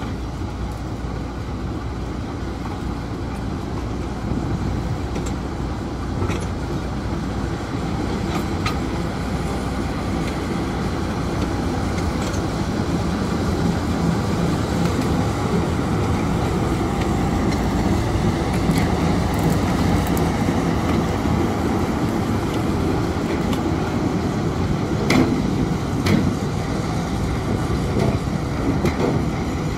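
TU2 narrow-gauge diesel locomotive's engine running as it moves slowly past, a steady low rumble that grows louder as it comes close, with a few sharp clicks and knocks from the wheels and track.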